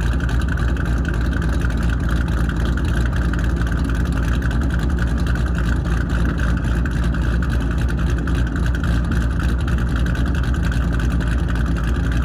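Modified S197 Mustang's 4.6-litre three-valve V8 running at a steady idle through long-tube headers and an aftermarket exhaust, even and unchanging.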